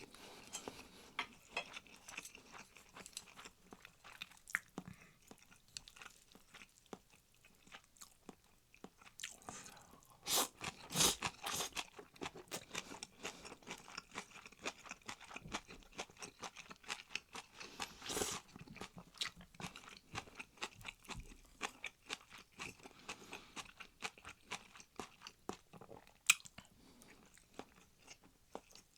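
A person chewing and crunching food close to the microphone: a dense run of small crisp crunches with a few louder bites.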